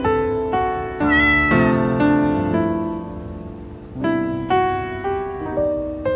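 Gentle solo piano background music, one note or chord about every half second. About a second in, a brief high sliding call cuts across it.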